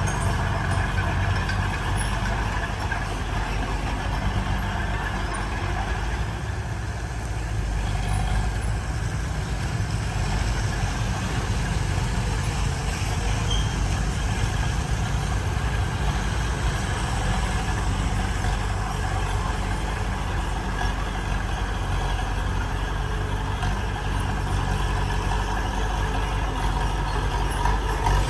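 Heavy diesel construction machinery running steadily under load, a deep engine sound with no pauses.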